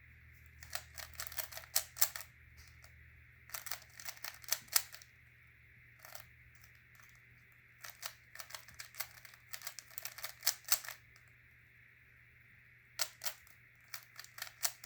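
Rubik's Cube being solved: quick runs of plastic clicking as the layers are turned, in about five bursts with pauses of a second or two between them.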